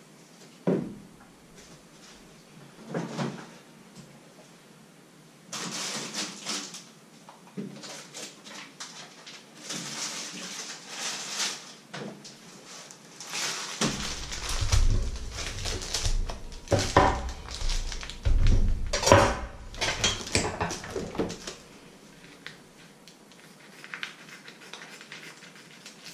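Kitchen handling noises: plastic food packaging rustling and crinkling, with knocks and clatter as things are put down on a wooden counter, heaviest about halfway through.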